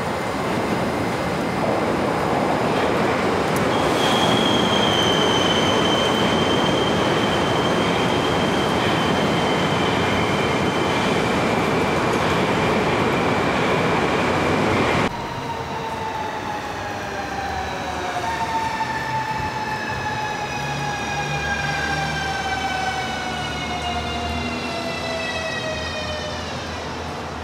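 Electric multiple-unit train (Moscow Central Circle ES2G Lastochka) running on the rails with a loud rumble and a steady high squeal; after an abrupt cut about halfway, an electric train's motor whine falls steadily in pitch as the train slows.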